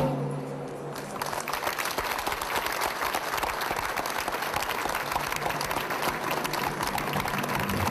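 Audience applauding; the clapping sets in about a second in and stays dense and steady.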